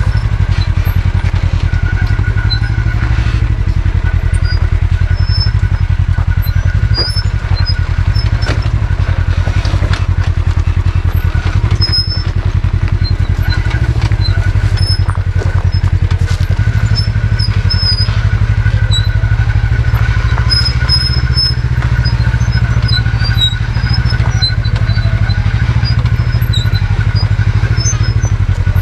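Off-road side-by-side UTV engine running steadily at low trail speed: a close, even, low pulsing rumble with a faint steady whine above it.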